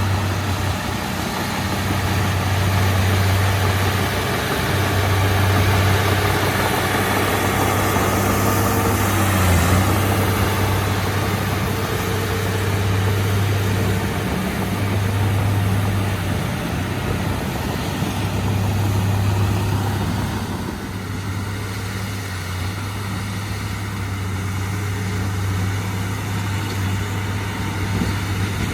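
Heavy diesel engine of earthmoving machinery running continuously with a steady low hum, its loudness rising and falling as it works, easing off somewhat about two-thirds of the way through.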